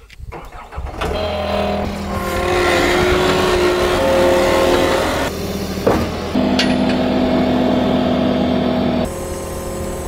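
John Deere compact track loader's diesel engine comes up to speed about a second in and runs at high throttle, its pitch shifting several times as the loader drives forward and works its bucket. There is a single clank just before six seconds.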